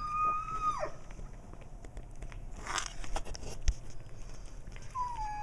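A cat chewing a freshly caught mouse, with scattered crunches and clicks as it bites through it. A clear whistled call is held and then drops away in the first second, and a shorter falling whistle comes near the end.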